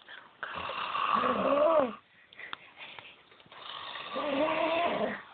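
A sleeping person snoring loudly: two long snores about a second and a half each, a few seconds apart, each with a buzzing pitch that rises and then drops away.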